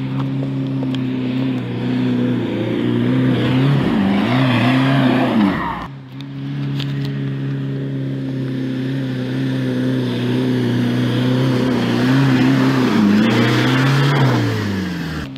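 Off-road vehicle engine held at high revs under load, its pitch sagging and recovering twice, with an abrupt break about six seconds in.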